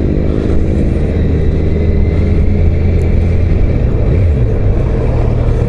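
Kawasaki Z900's inline-four engine running at road speed under a rush of wind noise. The engine note climbs a little at the start and dips briefly about four seconds in.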